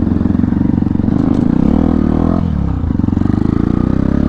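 Hero Impulse motorcycle, modified for rally racing, running under load while being ridden off-road. The engine note drops briefly about two and a half seconds in, as if the throttle is rolled off or a gear is changed, then rises steadily as it revs up again.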